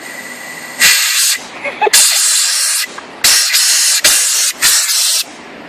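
Compressed air hissing out of a valve on a marina air compressor in five sharp blasts, each half a second to a second long, with short breaks between them.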